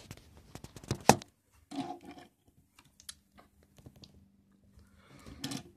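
Handling noise: a run of light clicks and knocks, the loudest about a second in, with two short scraping rustles.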